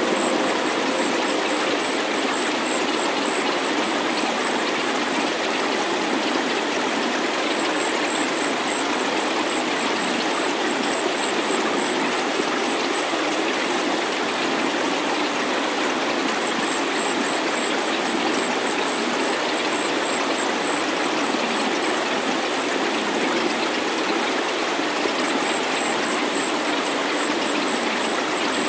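Synthesized healing-meditation soundscape: a steady, even hiss of noise with almost nothing in the low bass, and a thin high-pitched tone above it that wavers in and out.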